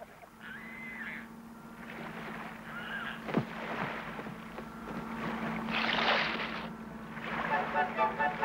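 Sparse documentary-score music: a few high gliding tones and a quick falling swoop over a steady low hum, then repeated short notes near the end. A short rush of noise comes about six seconds in.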